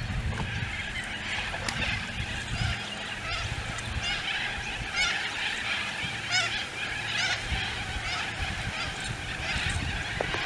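Birds calling over and over in short, high, repeated notes, with wind buffeting the microphone underneath.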